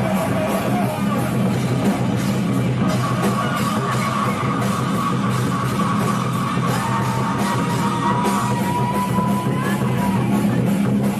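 A live heavy metal band playing loud: distorted guitar and bass over fast, even drumming, with a long held high note through the middle.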